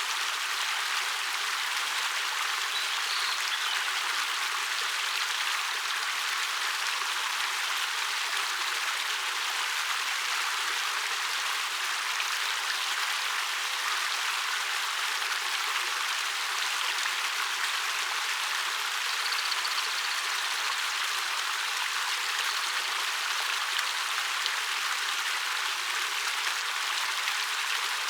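Water of a 13 m waterfall pouring down a rock face, a steady rushing and splashing hiss that stays even throughout.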